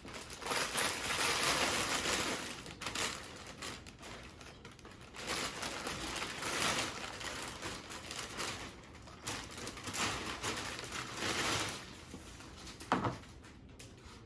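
Plastic vacuum-bag film and breather material crinkling and rustling in uneven spells as they are pulled off a cured carbon-fibre mudguard, with one sharp knock near the end.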